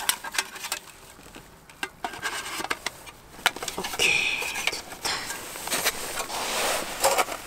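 Clicks and clacks of a black folding trekking table's hinged panels as it is unfolded and its sections are snapped into place. A brief rustle or scrape comes about four seconds in.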